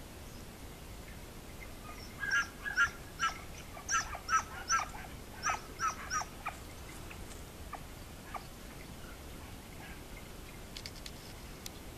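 An animal calling in a quick run of about a dozen short, high calls that last about four seconds and then stop.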